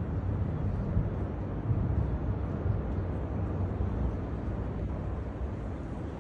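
Storm wind gusting over a phone's microphone: a low, uneven rush of noise that rises and falls.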